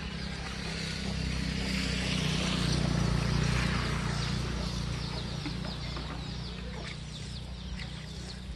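Chickens clucking, many short falling calls throughout, over a steady low rumble. Water is splashed from a plastic dipper onto straw mulch, making a hiss that swells loudest about three seconds in.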